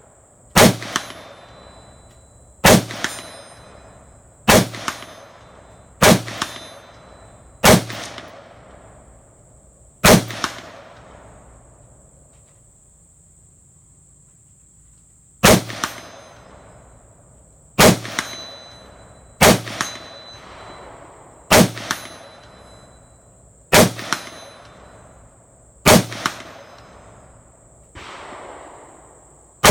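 Palmetto State Armory AR-15 rifle fired in slow, deliberate single shots, about one every two seconds, each report echoing briefly, with a pause of about five seconds partway through.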